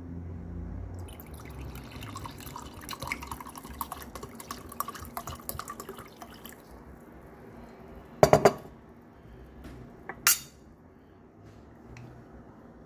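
White wine poured from a glass bottle into a glass tumbler, gurgling and splashing for about five seconds as the glass fills. Then two sharp knocks about two seconds apart.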